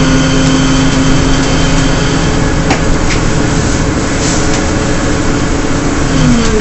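Inside a 2009 Gillig Advantage transit bus under way: its Cummins ISL diesel and Allison B400R transmission give a steady howl over the rumble of tyres on wet pavement. Near the end the howl's pitch falls.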